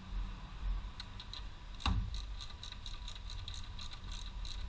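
Light, slightly uneven clicks, about three to four a second, with one louder knock about two seconds in: tools and parts being handled on top of a BMW M54 engine during crankcase ventilation (CCV) replacement.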